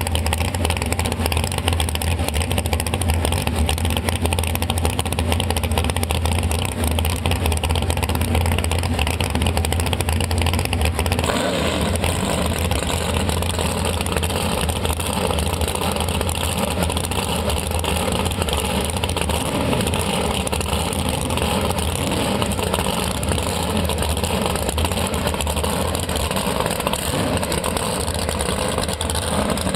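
Drag boat's big-block Chevy V8 idling close by, a steady loud low rumble. About eleven seconds in the engine note shifts and turns rougher and less even.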